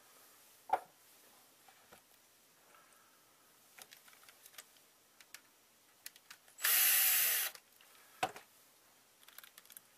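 Handling of a plastic equipment enclosure on a tabletop: scattered knocks and taps, and one loud burst of rushing noise just under a second long about seven seconds in.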